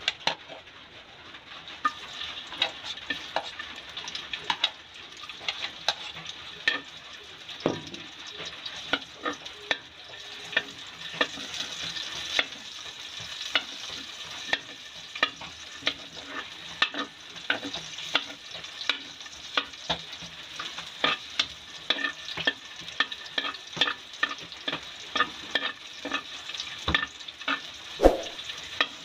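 Chopped garlic sizzling in hot oil in a metal wok, while a metal spatula stirs and scrapes it, clicking against the pan about once or twice a second.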